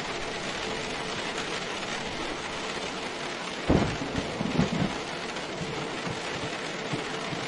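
Steady heavy rain, with a sudden clap of thunder a little over halfway through that rumbles on for about a second before fading back under the rain.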